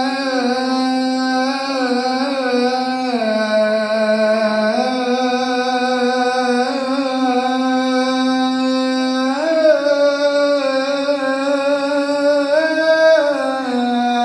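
Coptic liturgical hymn chanted in unison: long held notes that glide slowly between pitches without a break, stepping up about two thirds of the way through and sinking again near the end.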